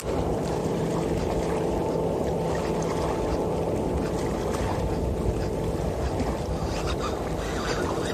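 Steady low rushing noise of water and wind around a fishing kayak on the open water.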